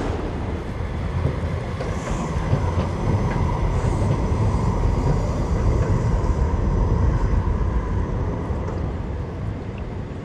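Train running on the rails: a steady low rumble with faint high squeals in the middle, which holds and then fades away near the end.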